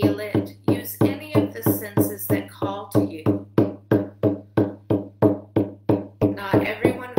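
Hand-held frame drum beaten in a steady, even rhythm of about three strikes a second, each beat ringing briefly with a low tone.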